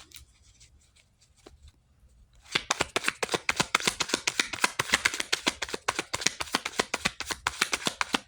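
A deck of reading cards being shuffled by hand: after a quiet start, a rapid run of crisp card flicks begins about two and a half seconds in and keeps going.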